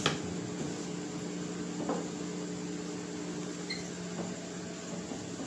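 Steady low electrical hum in a small room, with a couple of faint brief handling sounds.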